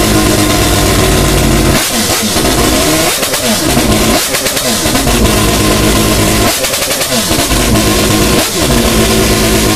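Rotary (Wankel) engine car running loud, its revs dropping sharply and climbing again about five times.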